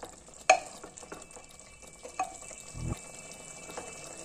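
A spatula stirring chicken and onions in masala inside an aluminium pressure cooker, with scattered scrapes and knocks against the pot over a faint sizzle. The sharpest knock comes about half a second in.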